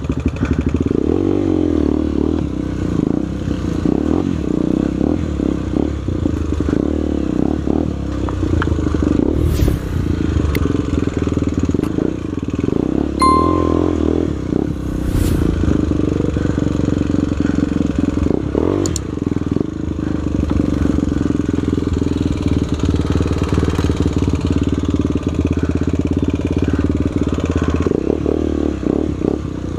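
Trail motorcycle engine running steadily at moderate revs on a dirt trail, with a few sharp knocks from the bike over rough ground and a short beep about 13 seconds in.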